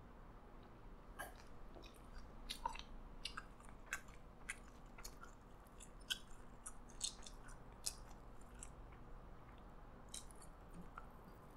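Quiet close-up eating sounds: scattered sharp, wet clicks of chewing and of a burger being pulled apart by hand, thinning out near the end.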